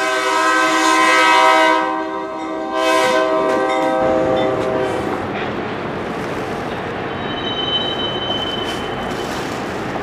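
Diesel locomotive's multi-note air horn sounding two long blasts, the second fading out about five seconds in. A steady low rumble of the approaching train follows.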